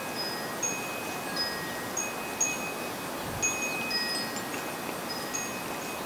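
Wind chime ringing in irregular strikes, several clear tones at different fixed pitches overlapping, each note ringing out for under a second.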